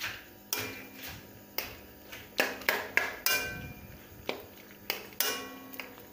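Metal spoon clinking and scraping against a stainless steel karahi while stirring a tomato masala: irregular sharp clinks about two a second, some with a brief metallic ring.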